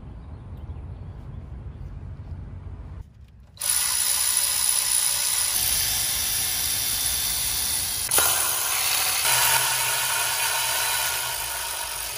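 A low outdoor rumble for about three seconds, then a cordless electric ratchet running loudly and steadily from about three and a half seconds in, with a sharp click about eight seconds in.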